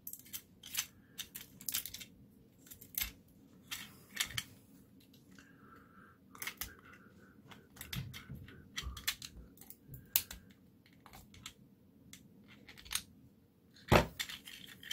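Irregular small clicks and snips of hard 3D-printed plastic: a print-in-place toy's jointed limbs being worked and side cutters trimming leftover brim off it. One louder snap near the end.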